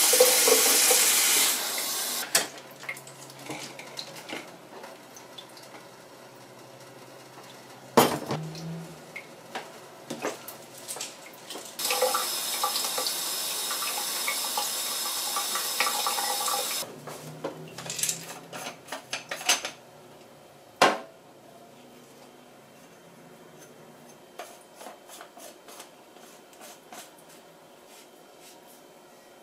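Kitchen tap running into a clear plastic filter cartridge over a stainless steel sink, rinsing the filter media: the water stops about two seconds in and runs again for about five seconds midway. In between and afterwards come knocks and clatters of the cartridge being handled, with a sharp knock about eight seconds in.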